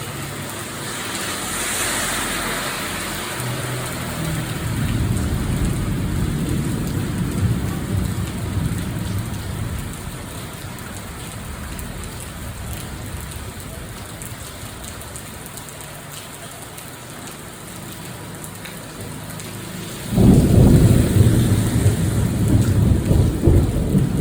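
Steady heavy rain, with thunder rumbling low from about four seconds in and dying away by about ten. About twenty seconds in, a much louder thunderclap breaks suddenly and keeps rumbling.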